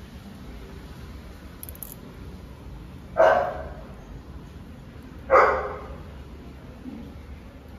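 A dog barking twice, about two seconds apart.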